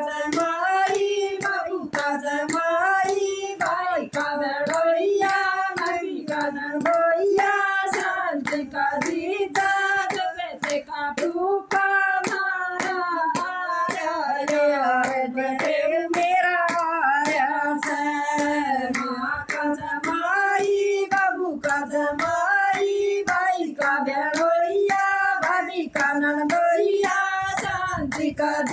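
Women singing a song together in unison, unaccompanied, keeping time with a steady rhythm of hand claps.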